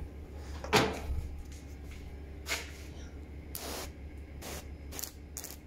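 Solo backpack sprayer's lance spraying water in several short bursts as the trigger is squeezed, the freshly repaired pump holding pressure.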